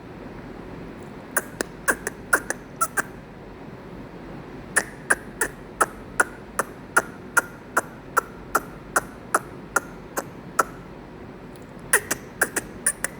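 Goat grazing close by, cropping grass in a run of crisp snapping bites at about two to three a second, with short pauses between the runs.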